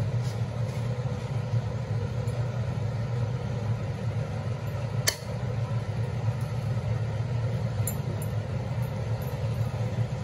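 A wooden spatula stirs chopped sorrel leaves in a pressure cooker pot over a steady low hum, with one sharp clink against the pot about five seconds in and a few faint ticks near the end.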